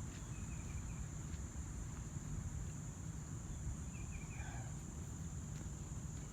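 Insects shrilling steadily at one high pitch over a low rumble, with two faint short chirps, about half a second in and about four seconds in.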